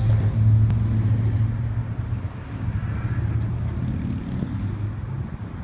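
Diesel train engine running, a steady low drone that slowly fades.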